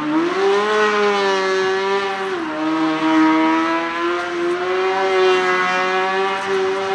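Honda 600cc engine in a Piaggio Ape Car Proto revving up over the first second, then held at high revs with a brief dip about two and a half seconds in.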